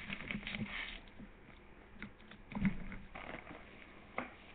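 Spoon clicking against a cereal bowl amid soft eating and handling noises, with a soft thump about halfway through and a sharper click near the end.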